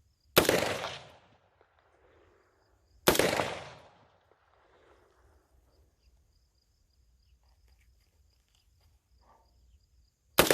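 Three single gunshots: two about three seconds apart, then a third near the end after a long pause. Each is followed by a fainter echo about a second later. A steady high insect trill runs underneath.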